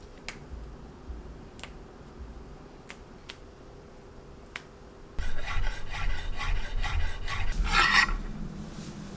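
Kitchen knife chopping fresh dill on a wooden cutting board: a quick, even run of strokes, about four a second, starting about five seconds in, after a few faint scattered clicks.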